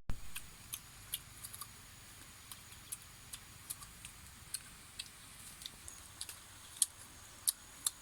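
Faint, irregular light clicks and ticks, roughly two a second, over a quiet background; a faint steady high tone comes in about six seconds in.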